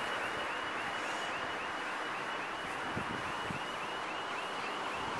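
Steady outdoor ambience of wind on the microphone with a distant hiss of surf and traffic, and a faint high chirp repeating about four times a second.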